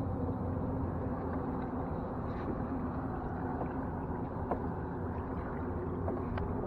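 Small outboard motor running steadily, a low even hum, with a few faint clicks over it.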